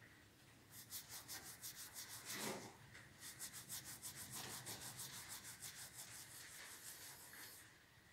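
Lockwood padlock body being wet-sanded, rubbed back and forth on wet abrasive paper: faint, quick scraping strokes, several a second, that stop near the end.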